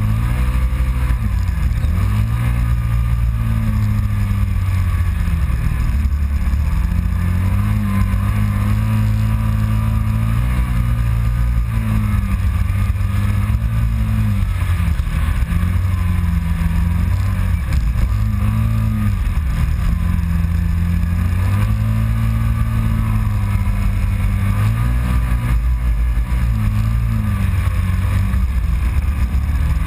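Kawasaki Teryx side-by-side's V-twin engine running hard under throttle, its pitch dipping and climbing back several times as the throttle is eased and reapplied.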